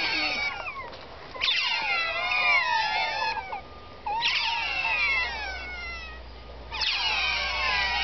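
A crowd of Asian small-clawed otters squealing and chirping together. Many high, falling calls overlap in loud waves with short lulls between. It is excited begging while they wait to be fed.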